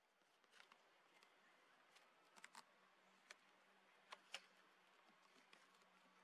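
Near silence, with a few faint scattered ticks and clicks and a faint low steady hum from about halfway.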